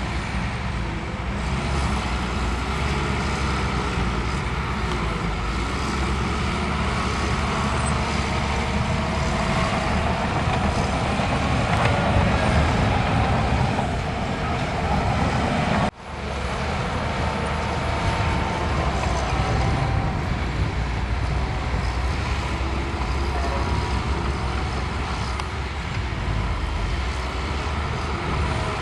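Heavy diesel earthmoving machinery working: deep, steady engine rumble with clanking and mechanical noise, which drops out for an instant just past halfway and then carries on.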